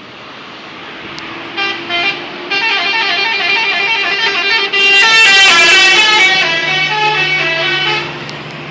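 Sugeng Rahayu bus's telolet musical horn playing a quick tune: two short toots, then a run of stepping notes that ends about eight seconds in. Vehicle engine noise runs underneath.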